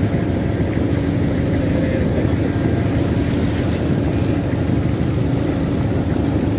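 Boat engine running steadily: a low drone with a faint held tone, mixed with rushing wind and water noise.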